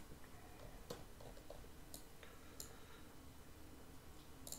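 Four faint, separate computer mouse clicks over quiet room tone.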